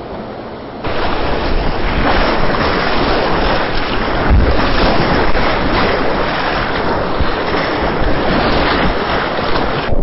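Rushing river whitewater heard from the kayak, a loud steady roar that jumps up about a second in, with wind and splash buffeting the boat-mounted camera's microphone in low rumbles.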